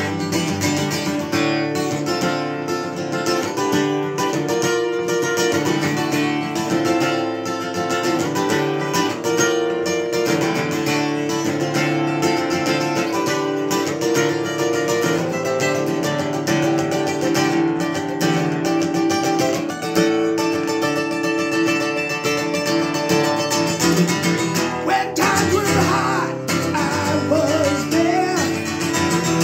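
Steel-string acoustic guitar strummed in a steady rhythm through an instrumental stretch of a song, its chords changing every second or so.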